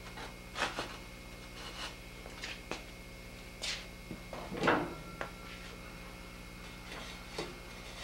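Scattered light knocks and scrapes as cut refractory bricks and a steel door frame are handled and set down on a metal-topped bench, the loudest knock about two-thirds of the way in, over a steady low hum.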